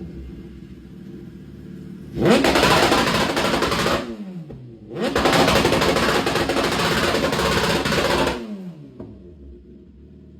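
Suzuki engine idling, then revved hard twice through a loud exhaust, each rev a harsh rapid crackle: one about two seconds long, then a longer one of about three seconds. The pitch falls back to idle between the revs and after them.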